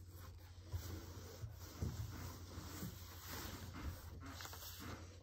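Paper picture cards being slid and tapped across a tabletop as they are sorted into groups, with soft scraping and paper rustling.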